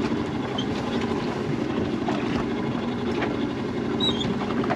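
Steady low rumble aboard a small fishing boat at sea, even throughout with no single event standing out.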